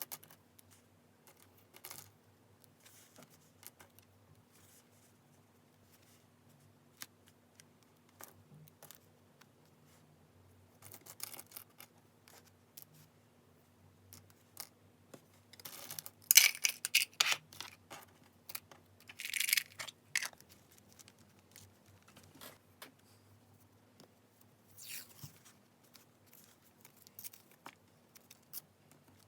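Paper and stationery being handled for journal decorating: scattered soft taps and rustles, with louder rasping stretches of paper being cut or torn about halfway through and again near the end.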